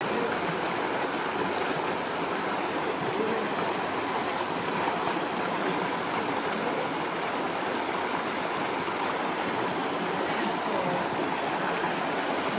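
Steady rush of stream water flowing and tumbling over rocks.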